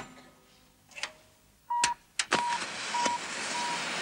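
Clicks of switches on a radio control set, then evenly spaced single high bleeps from its loudspeaker, the control signal for 'forward'. From about two seconds in, a rising steady rushing hiss from the rockets firing on the giant rocket-driven wheel.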